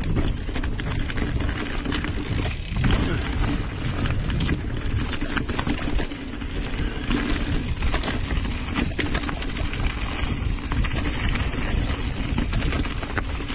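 Mountain bike riding fast over a rocky dirt trail, heard from a camera mounted on the bike: a steady low rumble of tyres and wind, with frequent rattles and clacks as the bike hits rocks and roots.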